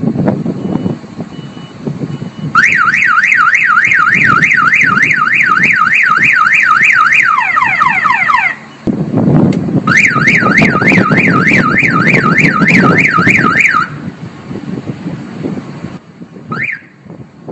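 Truck fuel-tank and battery anti-theft alarm siren sounding in two loud bursts of fast up-and-down warble, about three sweeps a second. The first burst speeds up and dips lower just before it cuts off; the second starts about a second later and runs about four seconds. A single short rising chirp sounds near the end.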